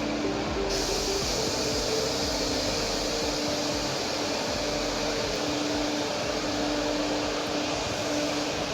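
Steady rushing noise, growing brighter and hissier about a second in, with faint background music underneath.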